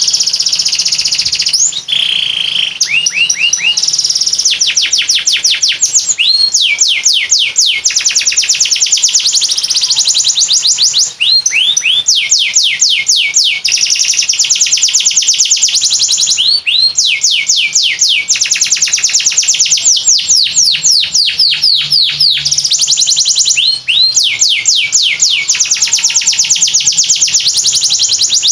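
Domestic canary singing one long, nearly unbroken song of rapid rolling trills. Each trill is a fast run of sharply falling whistled notes, about ten a second, with only a few brief breaks.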